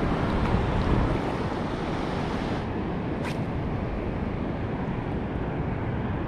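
Steady wind on the microphone over the wash of shallow sea water, with one short, sharp click a little past three seconds in.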